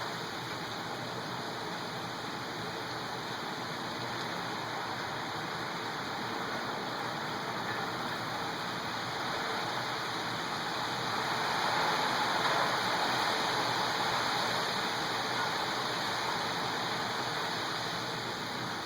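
Heavy thunderstorm rain pouring down steadily, swelling a little louder about two-thirds of the way through.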